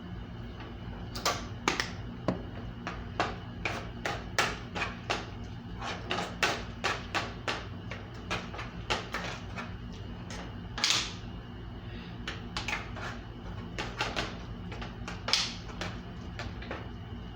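Irregular clicks, knocks and short scrapes of kitchen utensils on cookware while vegetables are seasoned, over a steady low hum.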